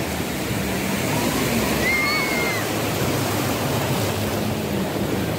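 Sea surf at the shoreline: a steady rush of breaking and washing waves.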